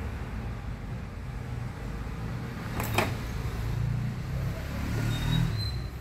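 Microwave oven door latch releasing with a single sharp click about halfway through as the door is opened, over a steady low hum. A faint thin high tone sounds near the end.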